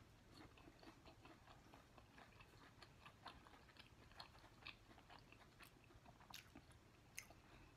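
Faint chewing of a chicken McNugget close to the microphone: a steady stream of soft, irregular mouth clicks and smacks.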